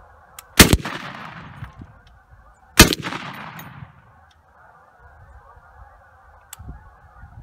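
Two single shots from a semi-automatic Colt-Browning 1919A4 gun, about two seconds apart, each followed by about a second of echo.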